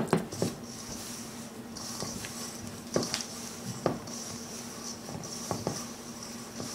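Hands mixing and kneading a crumbly flour-and-oil dough in a stainless steel bowl: soft rubbing and crumbling with several sharp knocks of hand or bowl against the metal, the loudest right at the start and others a few seconds apart. A steady low hum runs underneath.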